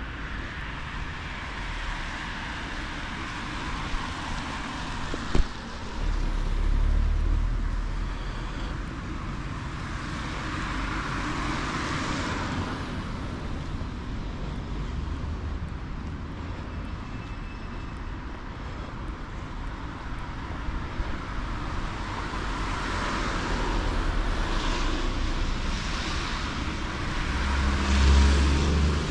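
Town street ambience with vehicles passing, their noise swelling and fading about twelve seconds in and again toward the end, with a few low rumbles and one sharp click.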